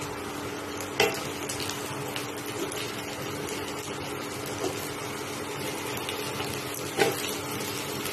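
Chopped onions frying in mustard oil in a kadhai, a steady sizzle, while raw potato chunks go into the pan. Two sharp knocks break it, about a second in and near the end, over a steady low hum.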